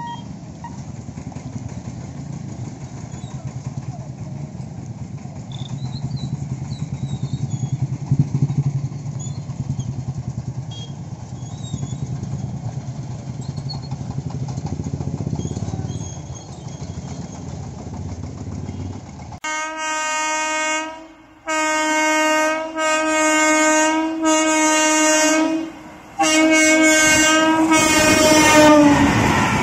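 Road vehicle engines running at a railway level crossing as traffic crosses the tracks. Then an electric locomotive's horn sounds a series of loud blasts, the last one held longer and falling in pitch at its end, and the train starts to rush past.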